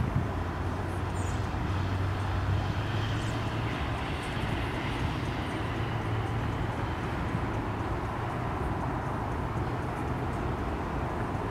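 Steady low rumble of distant engine noise, with a few faint high chirps in the first few seconds.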